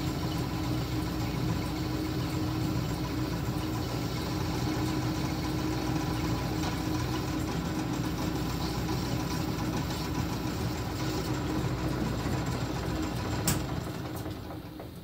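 Small bench metal lathe running steadily, its motor and gear drive humming at a constant speed. Near the end there is a sharp click and the sound winds down as the lathe spins to a stop.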